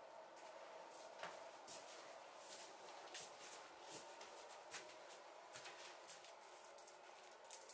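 Faint, irregular scratching strokes of painting tools on a surface, over a steady faint hum.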